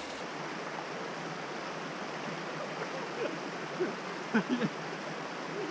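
Snowmelt creek water flowing steadily, with faint distant voices about four seconds in.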